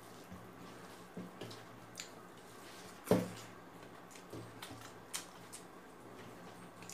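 Quiet eating sounds: rice and curry mixed and scooped on a metal plate and chewed, with soft scattered clicks and one louder knock about three seconds in.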